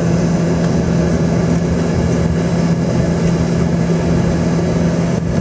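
Cabin noise of a jet airliner taxiing: the engines' steady hum with one low drone held level and no change in pitch.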